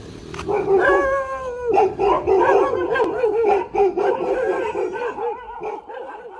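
Dog barking and howling: one long drawn-out call, then a run of quick, wavering yelps that fade toward the end.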